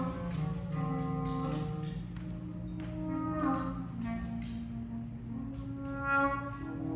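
Free-improvised ensemble of saxophone, reeds and clarinet playing overlapping sustained notes that shift pitch, some clashing, with scattered sharp percussive strikes.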